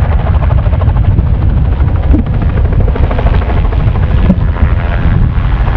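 Helicopter flying low and close, its rotor blades beating rapidly and loudly over a steady engine noise.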